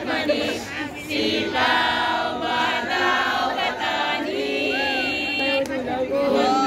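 A group of voices singing a chant-like song together, with held and gliding notes.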